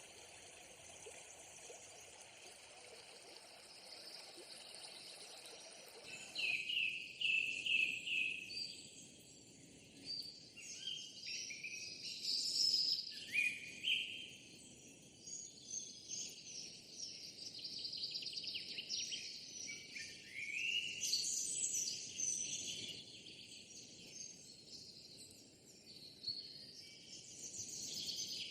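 Outdoor birdsong: several birds giving short chirping calls over a faint steady high insect hiss. A soft even background noise comes first, and the chirping starts about six seconds in.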